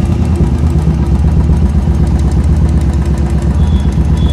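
Royal Enfield Classic 350's single-cylinder engine idling steadily through an aftermarket Megafone booster exhaust packed with glass wool, giving a deep, even thump.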